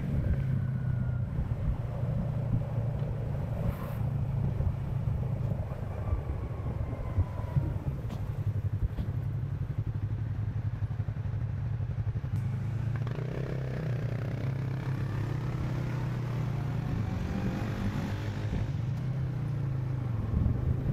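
Yamaha R6 sport bike's inline-four engine with an Akrapovic exhaust, running steadily at low, even revs while cruising.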